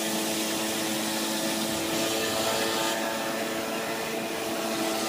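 Moped engine running at a steady speed while riding, with wind rushing over the microphone; the wind noise swells for about a second, two seconds in.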